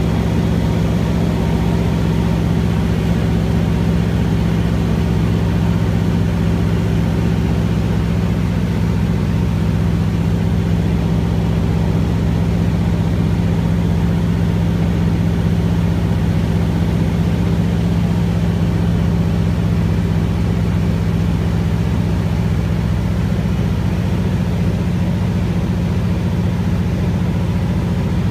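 Single-engine floatplane's engine and propeller droning steadily on the approach to a water landing, heard from inside the cockpit.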